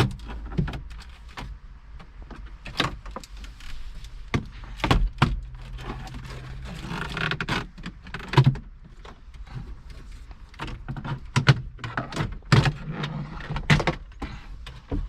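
Plastic dash trim panel being pried loose and handled: a run of irregular sharp clicks, snaps and knocks as its clips let go and the panel is worked free, with a brief scraping stretch about halfway through.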